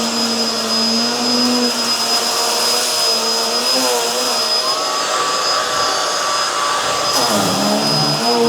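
Hoover Tangle Gard upright vacuum cleaner running steadily, with a motor hum and a constant high whine. Its motor pitch dips low and recovers near the end.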